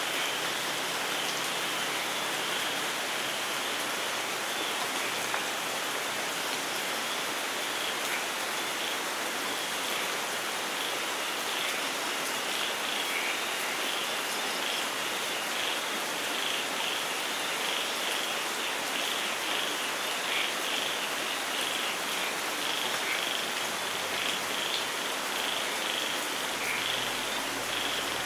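Steady rain falling, with many short high chirps repeating through it.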